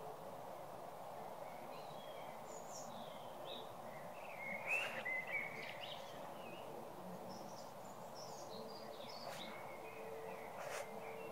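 Birds chirping and calling on and off over a steady background hiss of evening ambience, the calls loudest about halfway through, with a few short sharp notes near the end.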